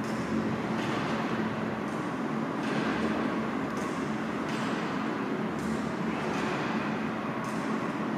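Steady low rumbling background noise that holds at one level throughout, with a faint held hum in it. A faint voice from a television playing an interview sits underneath.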